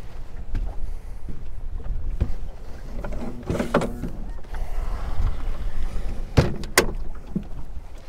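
Low wind rumble on the microphone, with a few sharp knocks, two of them close together late on.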